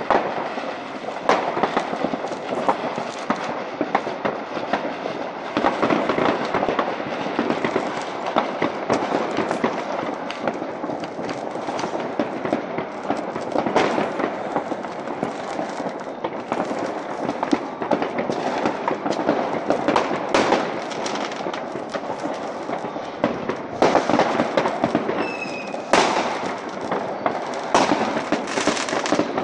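Many fireworks going off across a town: a continuous, dense crackle of bangs and firecrackers, with a short whistle near the end.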